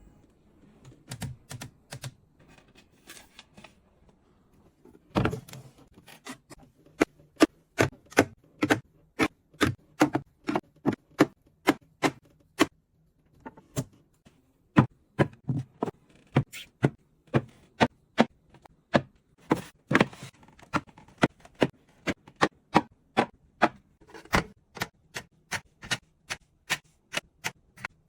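A long run of sharp, evenly spaced clicks, about two a second, starting around five seconds in and pausing briefly about halfway through. A few faint knocks come before it.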